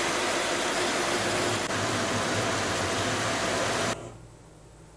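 Centerless grinding machine running, the wheel grinding a workpiece with a steady hiss and a low hum underneath, cutting off suddenly about four seconds in.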